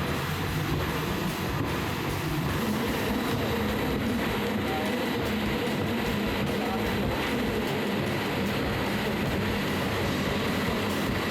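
CNC wood veneer peeling lathe running, a steady machine noise with a constant hum through it.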